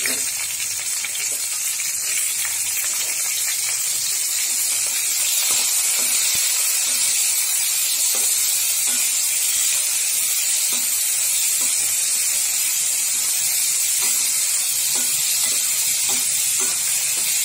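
Chopped tomatoes, onions and green chillies frying in hot oil in a wok, a steady sizzle, with a spatula stirring them now and then.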